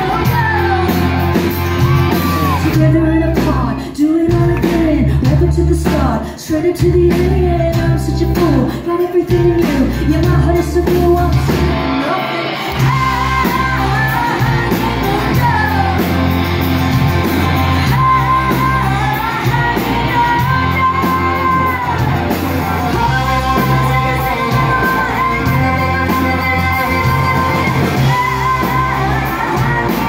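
Live band playing a rock song: a woman singing lead at full voice over acoustic guitar, electric bass and drums, heard through the hall's sound system.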